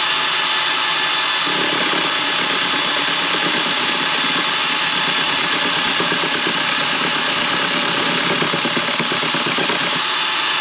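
Cordless drill running at a steady speed as the drive of a homemade wooden lathe, turning a wooden wand blank. From about a second and a half in, a hand chisel scrapes against the spinning wood, adding a rough scraping over the motor's steady whine.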